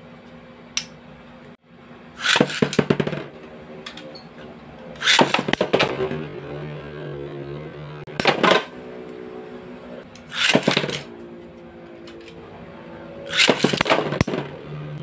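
Two Metal Fight Beyblade spinning tops, Gravity Perseus AD145WD and Rock Zurafa R145WB, whirring in a stadium. Five bursts of rapid metallic clattering come every two to three seconds as their metal wheels clash, with a steady hum between the clashes.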